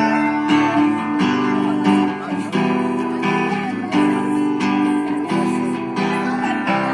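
Music led by a strummed acoustic guitar, with chords changing in a steady rhythm.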